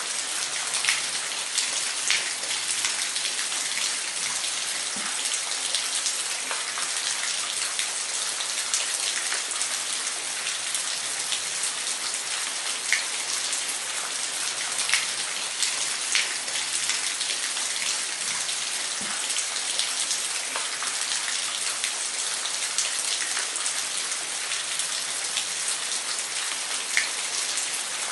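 Waterfall: a steady hiss of falling water with scattered sharp splashes and droplet ticks.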